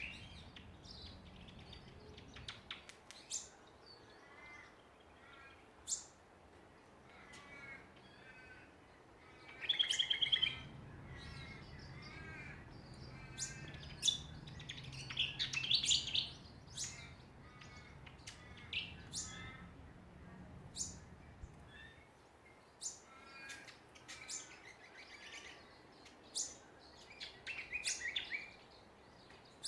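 Several Australian songbirds calling: a chorus of short sharp chips and twitters, with louder warbling phrases about ten seconds in, around fifteen seconds, and again near the end.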